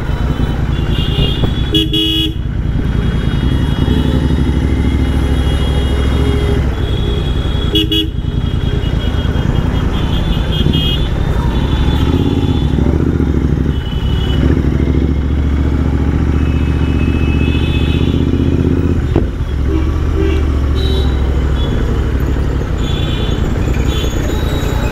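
Royal Enfield Interceptor 650's parallel-twin engine running steadily under way through an aftermarket exhaust, with vehicle horns tooting briefly several times.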